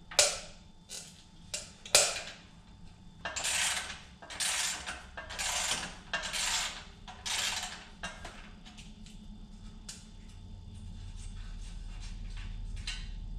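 Hand tools working the steel steering column of a John Deere 175 riding mower: two sharp metal clinks, then five rasping strokes about a second apart, then a few light clicks.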